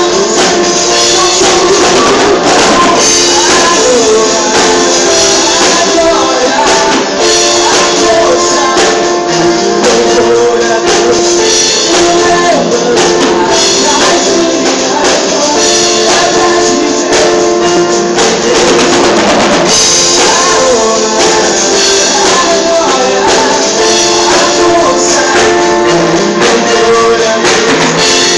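Worship band music with no sung lyrics: sustained chords over a steady jingling percussion rhythm.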